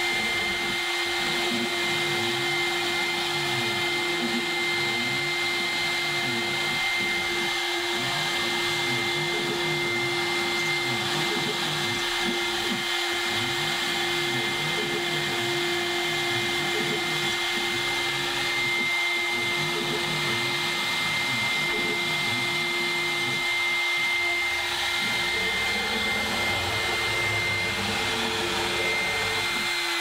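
CNC router engraving an aluminium composite panel with a carbide bit: the spindle runs with a steady high whine, and under it the axis motors hum, their pitch rising and falling as the head moves from letter to letter.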